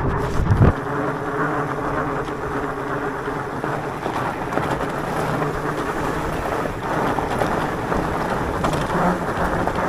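Electric mountain bike rolling on a gravel road: steady tyre noise with a faint steady hum, and wind buffeting the microphone in the first second.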